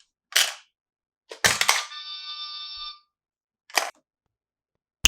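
Sharp clicks and clacks of plastic toy parts. A short rattling clatter about a second and a half in is followed by a ringing chime that holds steady for about a second, and a single sharp click comes at the end.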